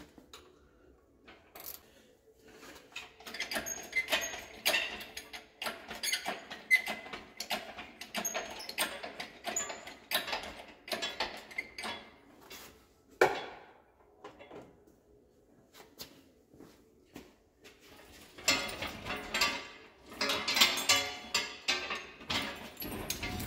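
Metallic clicking and clanking as a hydraulic engine hoist is pumped to lift the engine out of a John Deere 317 garden tractor, with one sharp knock about thirteen seconds in. Near the end comes a longer rattling, scraping stretch as the loaded hoist is moved away from the tractor.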